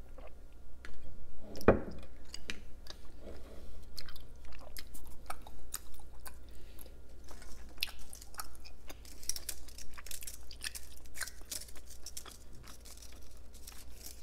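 Fried prawn crackers bitten with one sharp snap just under two seconds in, then chewed with a dense run of crisp crackling crunches.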